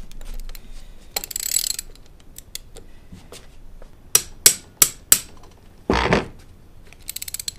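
Ratchet clicking as it swings on a Bolt Biter extraction socket gripping a stripped, rounded bolt, working it loose. A fast run of clicks comes about a second in, then four sharp hammer taps around the four-second mark, a short scraping rush, and another quick run of ratchet clicks near the end.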